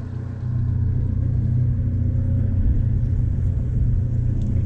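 Boat's outboard motor running steadily under way, getting louder about half a second in.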